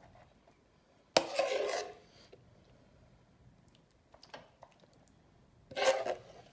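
A serving spoon scooping meat sauce out of a skillet, scraping against the pan twice: a clank and short scrape about a second in, another scrape near the end.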